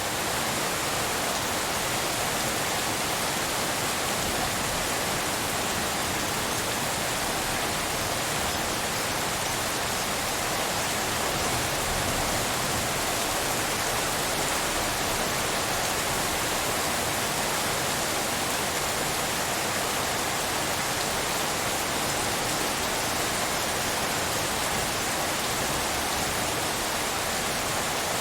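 Steady rain sound blended with pink noise, making a dense, even hiss with no separate drops standing out.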